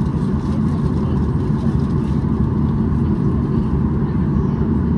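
Cabin noise of a Boeing 737-800 with its CFM56-7B engines at idle thrust during taxi, heard from a seat beside the wing: a steady low rumble with no change in pitch.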